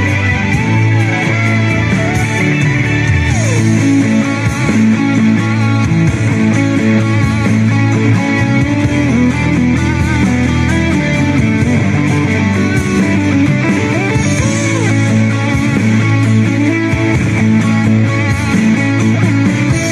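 Guitar-led instrumental rock music playing as a background track.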